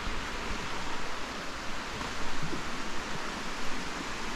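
The River Spodden's water rushing steadily, an even, continuous hiss.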